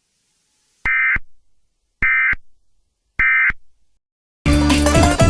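Three short, buzzy digital data bursts about a second apart: Emergency Alert System end-of-message (EOM) SAME tones, marking the close of the alert. Loud music starts near the end.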